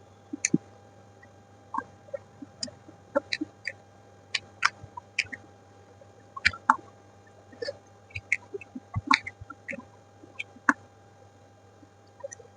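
Close-miked eating sounds: irregular wet mouth clicks and smacks of chewing, a few a second, from someone eating spicy noodles and chickpea curry.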